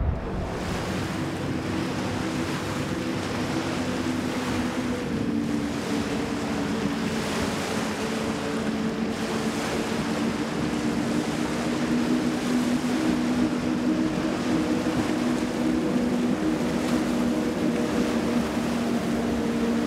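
Powerboat running at a steady speed on open water: an even engine drone under a constant rush of water and wind.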